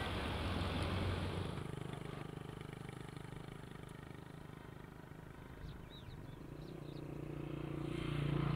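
A motor running steadily, its low hum growing louder near the end, with a few faint high chirps about halfway through.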